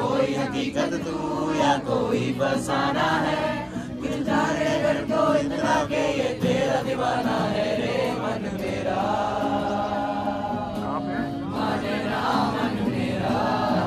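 A group of young people singing a Hindi song together, accompanied by strummed acoustic guitar.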